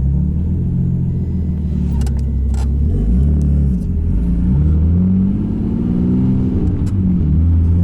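Nissan Laurel drift car's engine running under load, its revs rising and falling several times, with a few short clicks.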